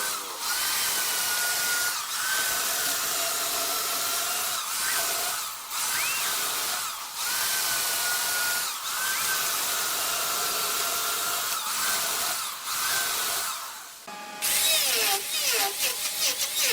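Wood lathe turning: a cutting tool shaving wood off the spinning workpiece in long passes, with short breaks every second or two. Near the end the sound changes to a fast, regular pulsing.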